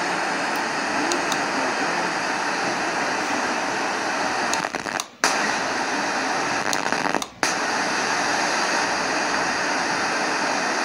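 FM radio static: a steady loud hiss from a small Kinter MA-120 amplifier's speaker as the tuner sits between stations. It cuts out briefly twice, about five and seven seconds in, as the tuning is stepped up.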